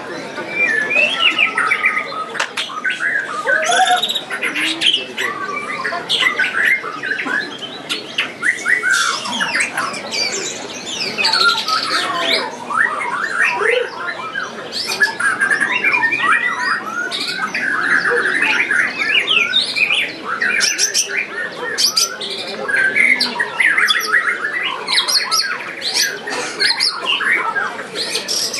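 Several caged white-rumped shamas (murai batu) singing at once in a songbird contest: a dense, unbroken mass of overlapping whistled phrases and rapid chattering notes.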